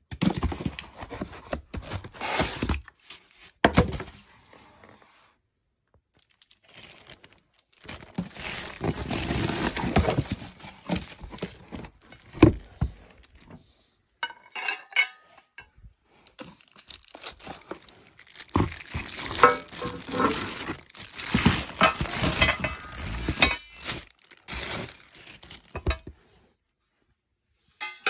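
Cardboard box and foam packing being handled and shifted while unpacking steel desk-frame parts: rustling and scraping of cardboard in irregular bursts, with clinks and knocks of the metal parts and short pauses between.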